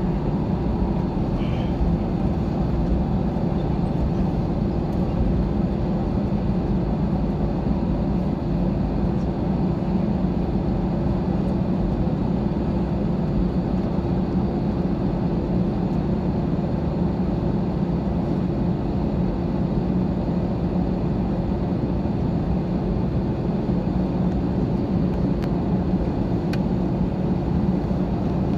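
Steady cabin noise of a jet airliner taxiing after landing, heard from a window seat inside the cabin: an even low hum of the engines with a couple of steady tones and a constant rush, unchanging throughout.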